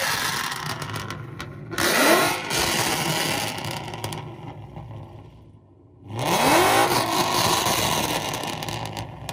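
Straight-piped 5.0 L Coyote V8 of a 2016 Ford Mustang GT with long-tube headers, X-pipe, no cats or mufflers and a cam tune, free-revved hard twice. The pitch rises sharply about two seconds in and again about six seconds in, then falls back toward idle each time. It is very loud.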